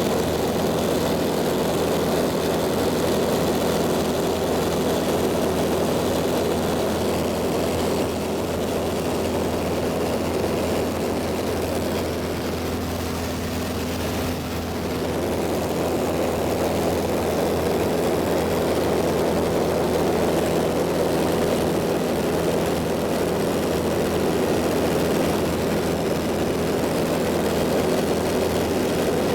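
Steady drone of a light propeller airplane's engine heard inside the cabin in cruise flight. It eases slightly for a few seconds about halfway through.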